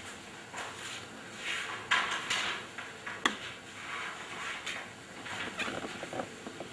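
Dry-erase marker scratching across a whiteboard in a run of short strokes, the loudest about two seconds in, with one sharp click a little after three seconds.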